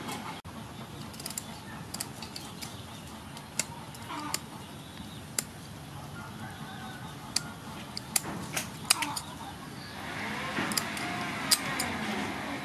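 Kitchen scissors working a whole raw fish: scattered sharp snips and clicks of the blades, with a louder, rougher stretch of cutting near the end.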